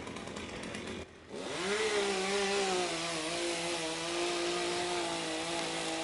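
Chainsaw engine rising to full throttle about a second in and running at steady high revs while cutting through a eucalyptus limb; before that a duller noisy hiss.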